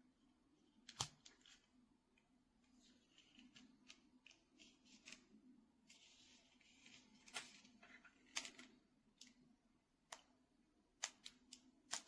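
Near silence with scattered faint clicks and small handling noises, the sharpest about a second in and a cluster near the end, over a faint steady hum.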